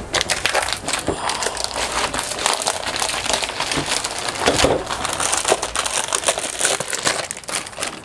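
Crinkly wrapping being pulled off bottles of shampoo and conditioner and crumpled in the hands, a continuous dense crackling.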